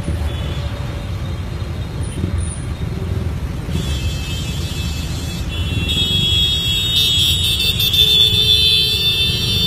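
Road traffic: the low, steady rumble of engines close by, with steady high-pitched tones joining about halfway and growing louder near the end.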